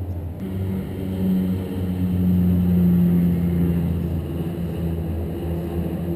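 Kawasaki Z1000's inline-four engine running at a distance, its note swelling to its loudest about halfway through and then easing back.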